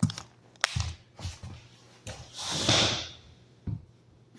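Scattered clicks and knocks from handling an electric power planer on a hardwood floor, with a single rushing noise lasting about a second, roughly two seconds in.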